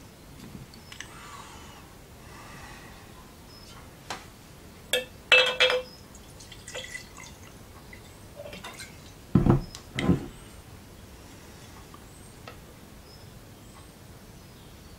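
Drink poured into a glass jar, with clinks of glass about a third of the way in and two dull knocks, like a bottle set down on the table, about two-thirds of the way in.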